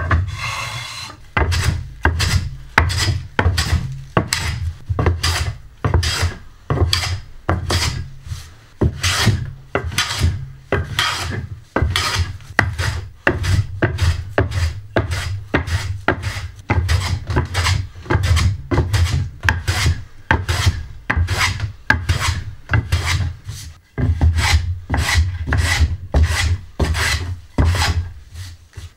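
Japanese wooden-bodied hand plane (kanna) taking quick short strokes over the face of a thick board to flatten it, about two strokes a second. Each stroke is a short rasping shear of the blade lifting a shaving, with a low thud from the plane and board on the bench.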